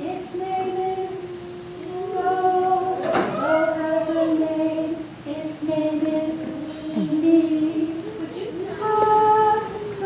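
A group of young children singing together in unison, holding long notes, with a sharp tap about three seconds in.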